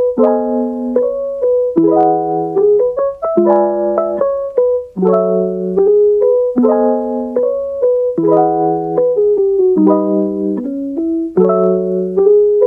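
Background piano music: a repeating pattern of struck chords, a new chord about every second and a half.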